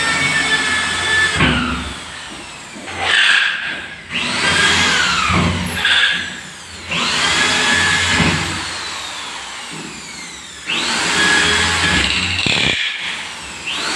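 Corded electric hand drill boring holes at the edge of a toilet partition panel, run in several bursts: the motor whines at speed, winds down in pitch each time the trigger is released and spins back up when it is pressed again.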